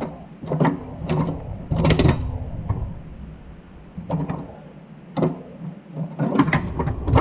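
Irregular metallic clicks and clinks of a #35 roller chain being handled and worked over by hand while its links are checked for cutting.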